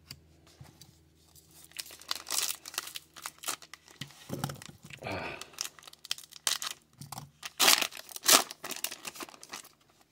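Foil trading-card pack wrapper being torn open and crinkled by hand: a run of sharp crackles and rustles, loudest about eight seconds in.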